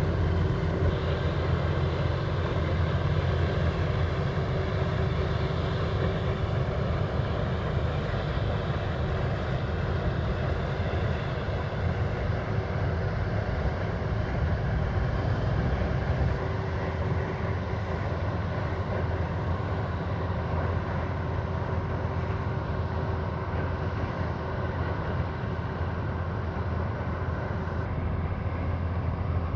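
Push tug's 240 hp Detroit diesel engine running steadily under load as the tug pushes a crane pontoon, a deep continuous drone that drops a little in level about halfway through.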